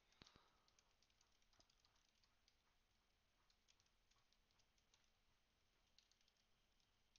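Faint typing on a computer keyboard: scattered soft key clicks, with a slightly louder click just after the start.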